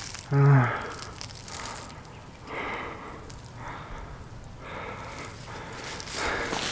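Footsteps crunching through dry pine needles, leaves and twigs, the steps about a second apart, after a brief voice sound at the start.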